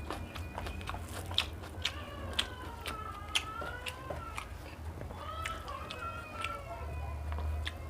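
Close-up eating sounds: crunchy chewing and biting with sharp mouth clicks about every half second. Behind them runs a high, wavering call-like tone that rises and falls, together with a steady low hum.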